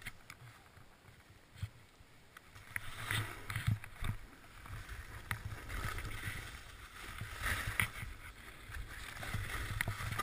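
Snowboard sliding and scraping through powder snow, heard from a helmet camera. It starts faint with a few small knocks and gets louder about two and a half seconds in, as the board sets off down the slope.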